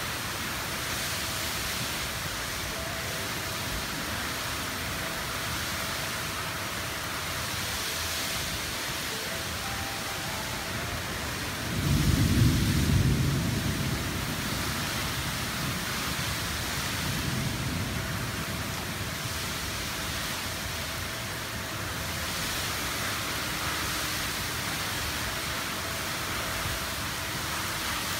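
Torrential monsoon rain falling in a steady, heavy hiss. About halfway through, a deep rumble of thunder swells up for a couple of seconds, and a fainter rumble comes a few seconds later.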